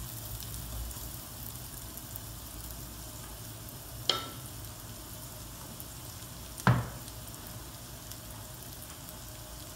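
Chopped garlic, onion and ginger sizzling steadily in butter in a frying pan, stirred with a wooden spatula at first. Two sharp knocks sound in the middle, a few seconds apart.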